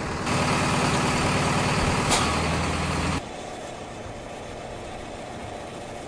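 Heavy construction machinery's engine running steadily, with one sharp knock about two seconds in. It cuts off abruptly about three seconds in, leaving a quieter steady hiss.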